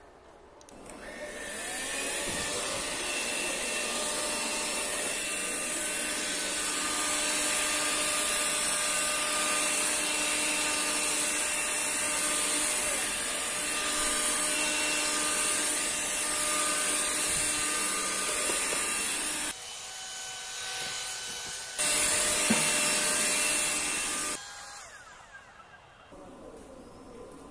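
Electrolux Ergorapido cordless stick vacuum spinning up and running on carpet: a steady motor whine over a rushing hiss of air. About twenty seconds in it drops briefly, comes back louder, and falls away near the end.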